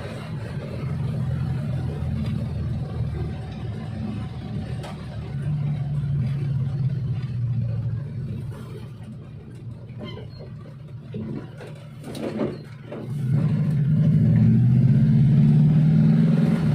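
Suzuki Espass minivan engine running and pulling, its drone swelling in revs twice with a quieter dip and a few short knocks in between.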